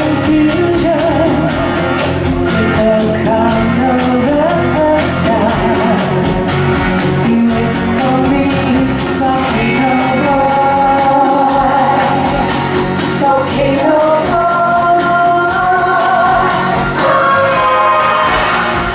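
Live pop-rock band playing with a woman singing long, wavering notes over sustained instrument tones and a steady beat.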